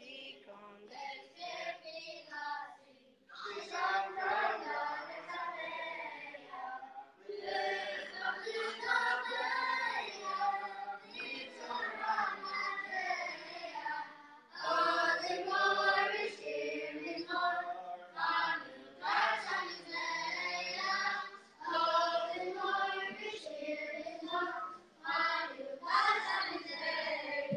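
Boys' choir singing without accompaniment, in phrases with short breaks between them.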